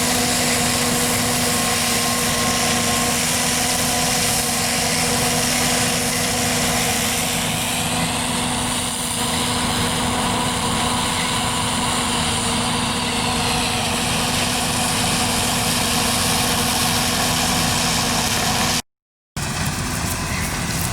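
John Deere 9400 combine running steadily: a constant machine drone with a steady whine. The sound cuts out for a split second near the end.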